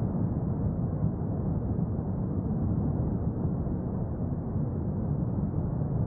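La Palma volcano erupting: a steady, deep rumble with no separate blasts.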